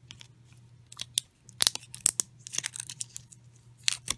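Fingers and nails prying at the plastic flip-top cap of a new body wash bottle, giving a string of sharp plastic clicks and short crackly scrapes as the stiff, still-sealed cap is worked open.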